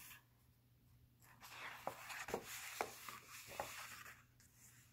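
Paper pages of a picture book being turned and shuffled by hand: a soft, faint rustle starting about a second in, with a few light taps and clicks of the sheets.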